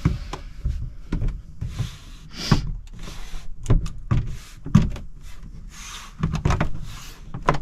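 Plastic Heki Mini rooflight blind frame being pushed and worked into the roof opening by hand: irregular knocks and clicks with scraping rubs between them, as it is seated into its channels.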